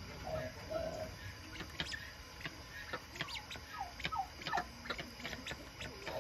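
Guttera guineafowl giving short, soft calls that fall in pitch, several in a row in the middle of the stretch, with scattered light clicks.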